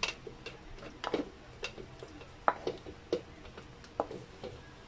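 A cooking utensil clicking and tapping against a pan and a plastic blender jar as sautéed chilies, tomatoes, onions and garlic are scooped across: scattered light clicks at an uneven pace, the sharpest about two and a half seconds in.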